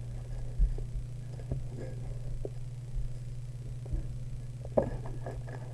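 Faint taps and handling noises of trading cards and a booster-pack wrapper, over a steady low electrical hum.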